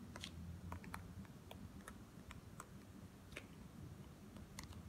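Faint, irregular light clicks and taps of a stylus tip on a tablet's glass screen during handwriting, over a low background hum.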